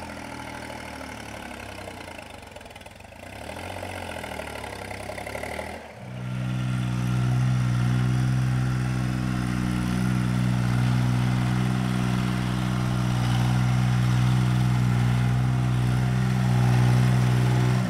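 Old New Holland compact tractor engine running steadily while it pulls a box blade. The engine is fainter for the first several seconds, then much louder and closer from about six seconds in.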